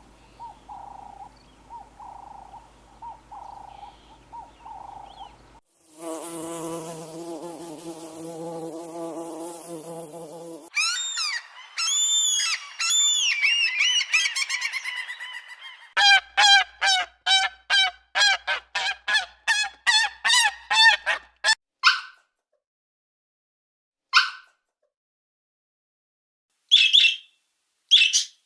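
A succession of different animal calls: a faint pulsing hum, then a nasal honking call, then rising and falling chirps, then a fast run of rapid pulses, and a few short calls separated by silence near the end.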